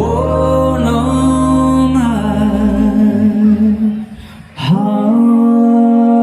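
Recorded vocal music played through Wharfedale Diamond 9.6 loudspeakers: long held wordless sung notes over a low bass that fades away, a brief drop about four seconds in, then another long held note.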